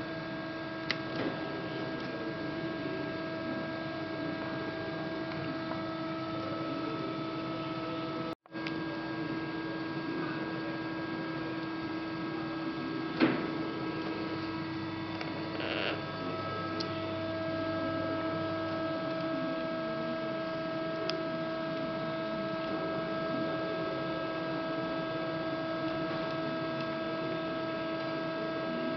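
LVD PPCB 150-ton CNC hydraulic press brake standing switched on, its hydraulic pump motor running with a steady hum. A single sharp click sounds about 13 seconds in.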